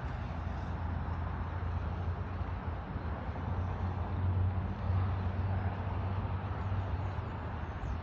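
Semi truck's diesel engine idling, a steady low hum.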